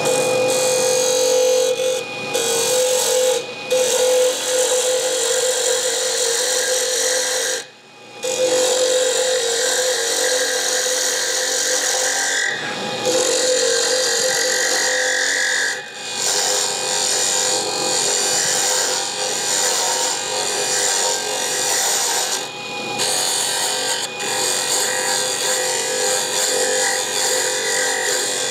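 Wood lathe turning a stabilized wood pen blank, with a hand-held turning tool cutting it: a steady scraping hiss over a steady whine, broken by several short pauses as the tool comes off the wood, the longest about eight seconds in.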